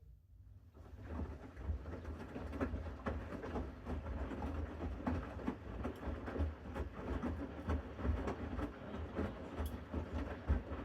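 Bosch Series 6 front-loading washing machine in its main wash: about a second in the drum starts turning, with a low motor and drum rumble and the wet load tumbling with many small knocks and clicks.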